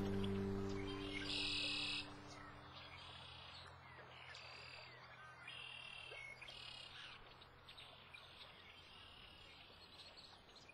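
Strummed acoustic guitar music rings out and fades over the first couple of seconds. Faint chirping animal calls then repeat about once every second and a half over a quiet background.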